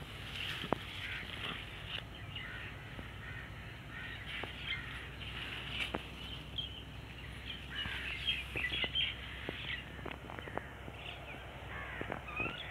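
Birds chirping in many short, scattered calls, with a few sharp clicks among them.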